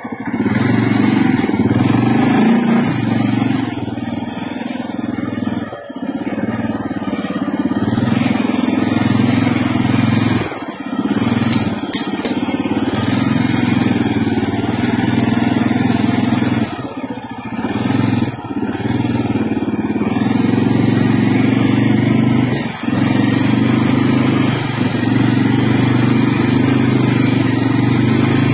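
CFMoto CForce 600 ATV's single-cylinder engine running under way while riding, its note dipping briefly several times and then picking up again.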